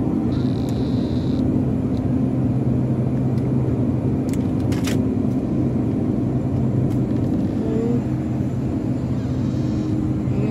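Steady mechanical hum from the supermarket's refrigerated display cases and ventilation. A brief high beep comes about half a second in, and two sharp clicks come a little after the middle.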